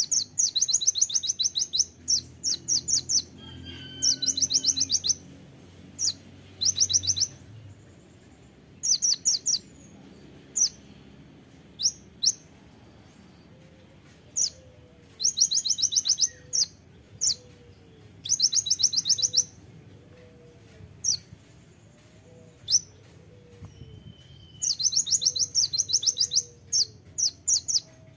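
Van Hasselt's sunbird (kolibri ninja) singing: sharp, very high rapid trills of about ten notes a second, in bursts of about a second, broken by single sharp chips.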